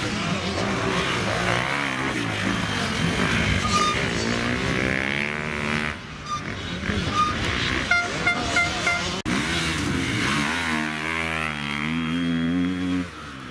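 Off-road enduro motorcycle engines revving hard, their pitch climbing and falling with the throttle as the bikes work through dirt and sand. Near the middle, four short high beeps sound in quick succession.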